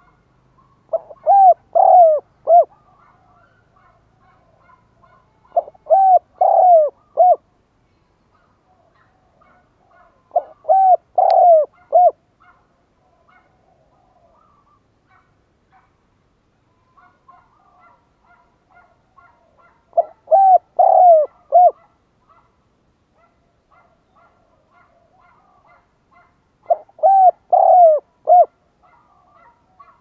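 Spotted dove singing its cooing song five times, each phrase a short run of four or five coos, with pauses of several seconds between phrases. Faint chirps from other birds can be heard between the phrases.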